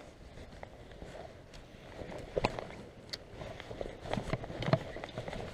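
Footsteps with rustling of clothes and fishing gear: irregular scuffs and knocks, with a few sharper knocks about halfway through and near the end.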